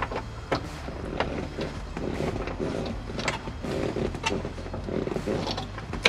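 Ignition key and lock cylinder clicking and scraping against metal as they are pushed and twisted into a new ignition switch: a string of small, irregular clicks over a low steady hum.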